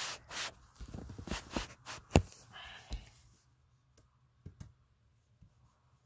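Handling noise: a run of clicks and knocks with a brief rustle, the sharpest click about two seconds in, then a few soft ticks.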